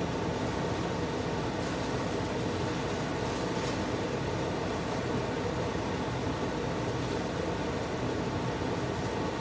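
A fan running steadily: an even whoosh with a low hum.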